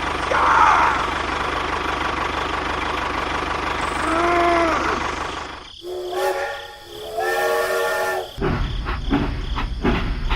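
A steady engine hiss and rumble, then two long, steady train-horn blasts about six and seven seconds in, followed by a louder low rumble with knocks.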